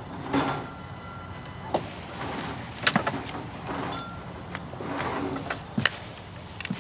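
Handling sounds of a plywood sheet being measured and marked with a tape measure: soft scuffs and rustles, with a few sharp clicks spread through.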